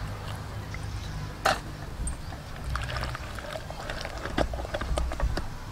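Scattered light knocks and clicks of a steel bowl, a steel spoon and a wooden pestle against a wooden mortar of chili paste, the loudest knock about a second and a half in.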